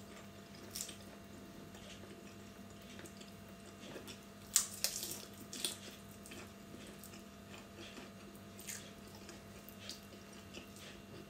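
Faint wet mouth sounds of a person eating shirataki noodles: slurping and chewing, with a cluster of louder smacks about four and a half to six seconds in. A steady low hum runs underneath.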